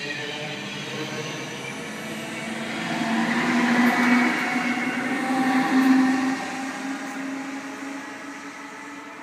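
NS ICMm (Koploper) electric train pulling out of a station platform. Its traction motors whine, rising slightly in pitch as it picks up speed, and the sound is loudest as the carriages pass close by about four to six seconds in. It then fades as the train draws away.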